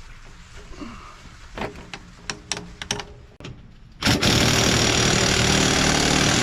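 A few light knocks, then about four seconds in an engine starts suddenly and runs loud and steady.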